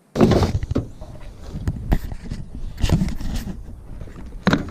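Irregular knocks, clunks and scraping of tools and equipment being handled and moved, starting suddenly about a quarter second in, with sharp clatters near two, three and four and a half seconds.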